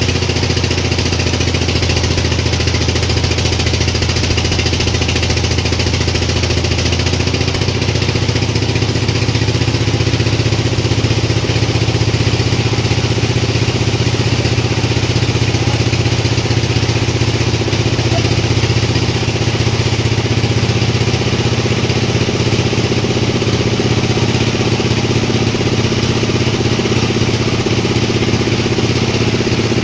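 Sawmill machinery running with a steady engine-like drone and a hiss above it; the low hum shifts slightly in pitch about eight seconds in.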